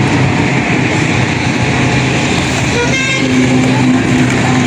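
Road traffic: the engines of passing vehicles running steadily, with a brief vehicle horn toot about three seconds in.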